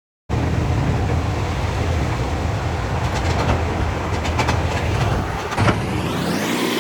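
Steady low rumble heard aboard a moving vehicle, starting suddenly just after the start, with a run of rattling clicks in the middle.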